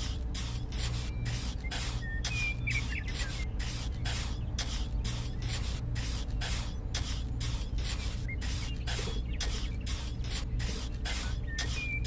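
Small hand trowel scraping and smoothing wet cement, in quick even strokes of about three a second, over a steady low hum.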